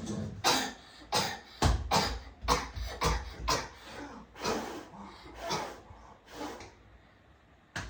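A person coughing repeatedly: a dozen or so short coughs about half a second apart, growing weaker toward the end.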